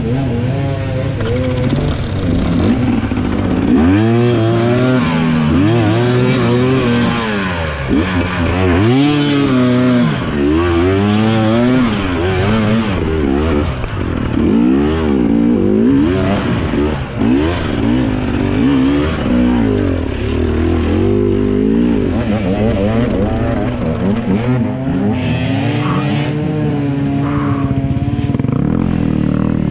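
Enduro dirt bike engine revving up and down over and over as the throttle is worked, its pitch rising and falling about once a second, then holding steadier near the end.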